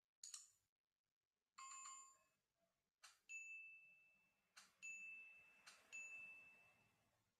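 Faint sound effects of an animated subscribe-button graphic: a short click just after the start, a bell chime about a second and a half in, then three mouse-click sounds each followed by a single high ding that rings out.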